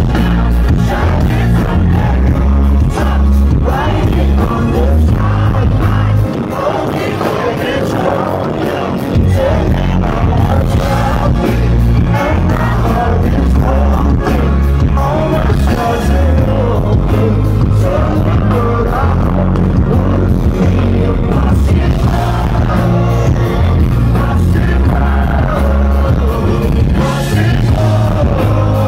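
Live band music: a male lead vocal over acoustic guitar, heavy bass and drums, played loud in a large hall and heard from among the audience. The bass drops out about six seconds in and comes back about three seconds later.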